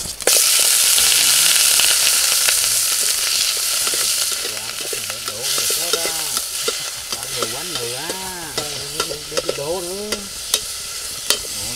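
Meat hitting hot oil in a steel pot sizzles loudly just after the start. The sizzle slowly eases as the meat is stirred with a ladle that taps and scrapes against the pot, most often near the end.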